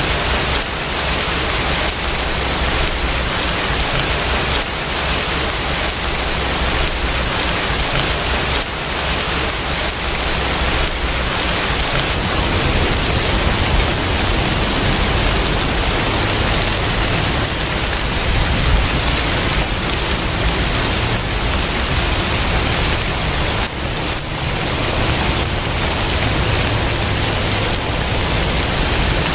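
Steady rain falling, an even hiss, with a low rumble that grows stronger under it about twelve seconds in.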